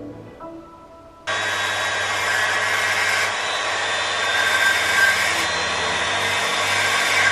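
Handheld rotary tool switched on about a second in and running steadily with a high whine.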